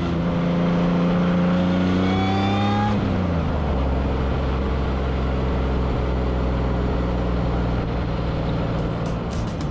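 Modified Pontiac Fiero engine accelerating with its pitch rising slowly, then dropping about three seconds in and running at a steady, lower pitch.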